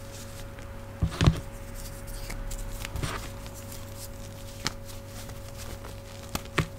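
Hands crushing and crumbling reformed gym chalk into powder, with a few sharp cracks as pieces snap, the loudest about a second in. A steady hum from an old fridge runs underneath.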